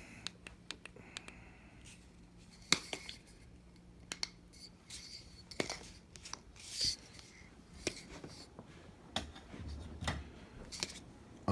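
Flashlights being handled: irregular sharp clicks and light knocks of small hard objects, with a brief scraping rustle a little past the middle and a soft thump near the end.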